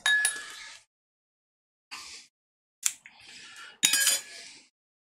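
Metal utensils clinking and scraping against stainless steel pans and dishes. A ringing clink comes at the start, a sharp click about three seconds in and a loud ringing clank just before four seconds, each followed by softer scraping.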